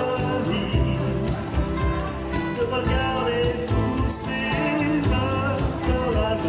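Takamine acoustic-electric guitar strummed in a live song performance, over fuller music with a deep low end and a steady beat.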